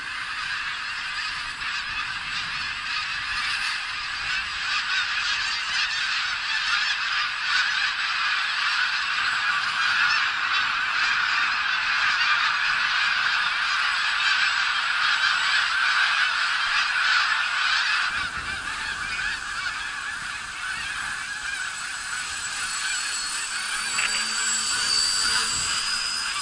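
A huge flock of geese honking, a dense continuous chorus of many overlapping calls, loudest around the middle. Near the end a high steady whine comes in as the small electric motor of a foam radio-controlled plane passes close.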